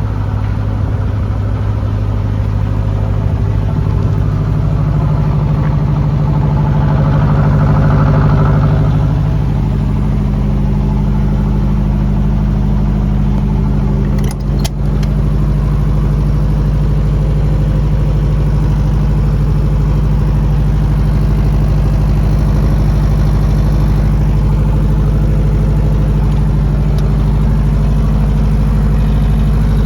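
Diesel generator engine running steadily, growing a little louder and fuller about five seconds in and settling back around nine seconds. A brief dip with two clicks comes near the middle.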